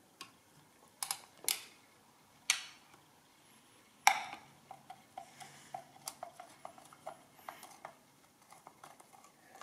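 Screwdriver working the screws that fix the machine's metal case to its wooden board: a few separate metal clicks, then a sharper click about four seconds in followed by a run of light, quick ticks as a screw is turned out.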